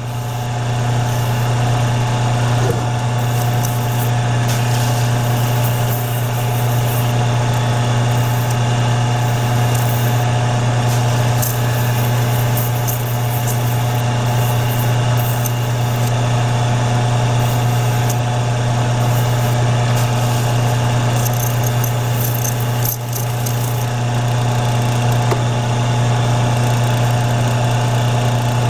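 Electric grinder spinning up and then running steadily with a low hum, with scratchy grinding noise on top as the edges of a sterling silver buckle are fine-ground before polishing.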